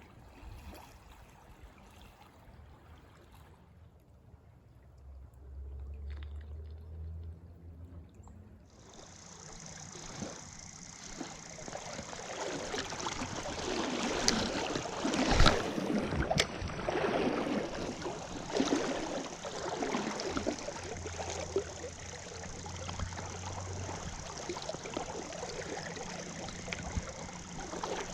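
River water flowing and rippling, faint at first and much louder from about a third of the way in, with a sharp knock about halfway through.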